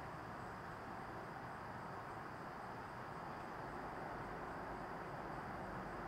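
Steady outdoor background noise, an even hiss-like rumble with no distinct events, under a faint, steady, high-pitched insect drone.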